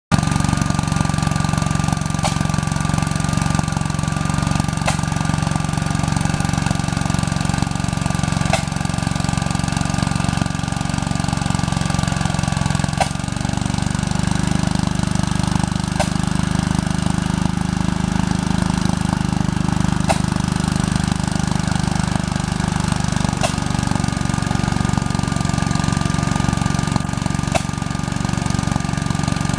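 A 1945 Gravely Model L's single-cylinder engine runs steadily while driving a chain saw attachment cutting logs. Its pitch shifts about 13 seconds in and shifts back near 23 seconds, with faint sharp ticks every few seconds.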